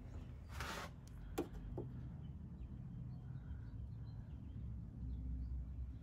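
Quiet handling of a removed plastic engine valve cover: a brief rustle under a second in and a sharp click about a second and a half in, over a steady low background rumble.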